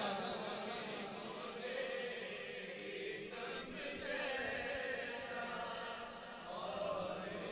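A group of voices chanting softly and steadily in unison, a low, continuous drone behind the naat while the lead reciter is silent between lines.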